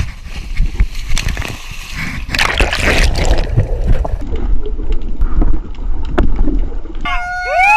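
Water splashing and sloshing, with wind rumbling on the microphone and scattered knocks. Near the end a person lets out a loud, long whoop.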